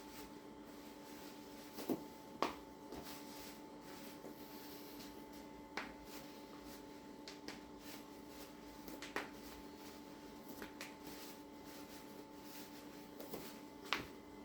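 A handful of short, sharp clicks and pops, spaced several seconds apart, from a patient's body being worked on a treatment table during a chiropractic adjustment, over a steady electrical hum.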